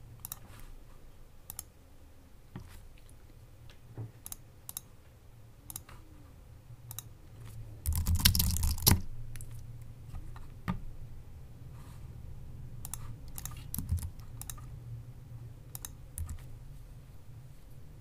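Typing on a Mac computer keyboard, with mouse clicks: scattered single keystrokes, then a loud, fast run of keys lasting about a second about eight seconds in, then scattered keystrokes again.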